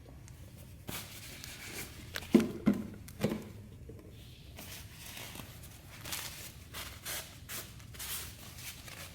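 Tools and parts being handled by hand: three or four sharp knocks and clunks in quick succession two to three seconds in, then scattered short scrapes and rustles.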